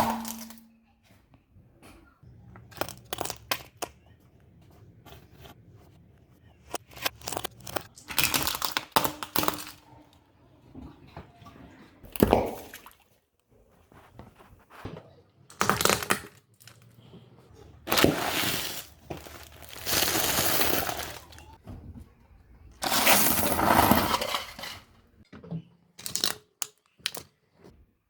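Objects crunching, cracking and snapping as they are crushed under a car's tyre. The sound comes in a string of separate bursts, some short and sharp and some lasting a couple of seconds, with quiet gaps between.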